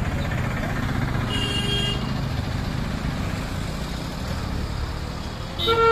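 Diesel engine of a Tata goods truck running at low revs as the truck manoeuvres through a turn, a steady rumble. A horn toots near the end.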